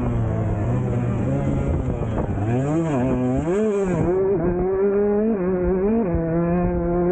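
2023 Husqvarna TC 125's two-stroke single-cylinder engine running under load on a dirt bike; its pitch dips and climbs back about three seconds in as the throttle is rolled off and back on, then holds steady with a couple of brief small drops.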